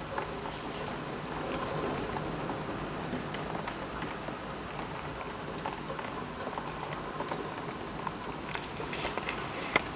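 Heavy rain mixed with hail falling: a steady hiss with scattered sharp ticks of stones striking hard surfaces, bunched near the end and ending with one loud tick.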